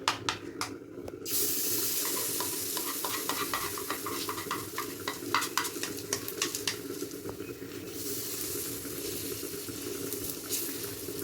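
Dosa batter sizzling on a hot oiled griddle (tawa). The hiss starts suddenly about a second in, after a few sharp clicks, and eases off about eight seconds in, with scattered clicks and scrapes of the utensils on the pan.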